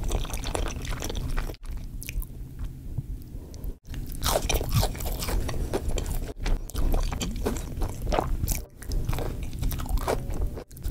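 Close-miked eating sounds: crunchy bites and chewing of fried fast food. The sound is broken by a brief silent gap about every two seconds.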